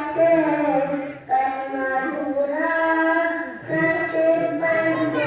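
A young boy's high voice singing devotional verses in long held, gliding notes, with short breaks between phrases.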